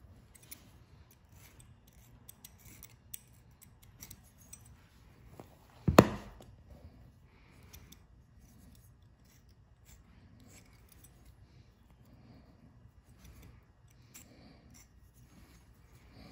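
Faint, scattered snips and clicks of a small knife cutting through the inner lip tissue of a deer cape as the skin is handled and turned, with one sharper knock about six seconds in.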